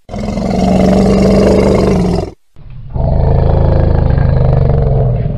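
African elephant roaring twice: one call of about two seconds, a brief break, then a longer call that swells in and carries on.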